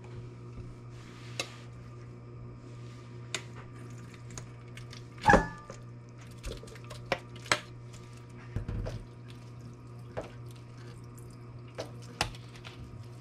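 A metal spoon scrapes and clinks against a stainless steel mixing bowl as salted, chopped cucumber relish is scraped out into a colander and pressed to drain off its liquid. One loud ringing clank of the metal bowl comes about five seconds in, over a low steady hum.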